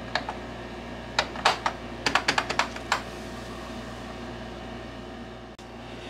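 Typing on a MOFii Sweet wireless keyboard with round typewriter-style keycaps: about a dozen key clacks in quick bursts over the first three seconds, over a steady low background hum.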